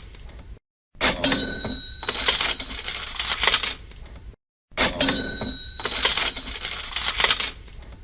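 Cash register sound effect looping: a bell ding with several held tones, then coins clinking and jingling. It plays twice, with a brief silent gap before each repeat, about a second in and near the end.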